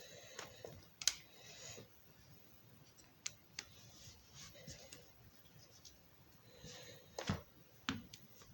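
Quiet handling noises of small objects: a few sharp clicks, the loudest about a second in and two more close together near the end, over soft scraping and rustling.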